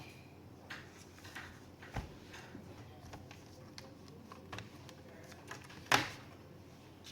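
Scattered light clicks and taps of laptop parts and tools being handled on a workbench, with a sharper knock about two seconds in and the loudest knock, with a short ring-out, about six seconds in.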